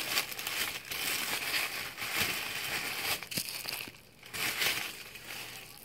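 Plastic bubble wrap crinkling and crackling as wrapped toys are handled and unwrapped, with a short lull about four seconds in.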